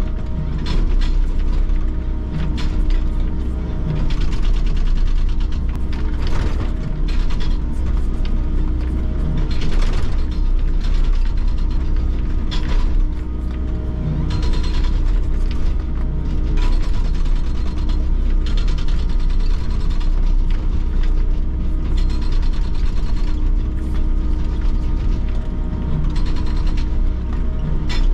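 Excavator-mounted hydraulic breaker hammering a concrete pile, a rapid run of chisel blows that goes in bursts with brief pauses. Underneath is the steady drone of the Volvo excavator's diesel engine.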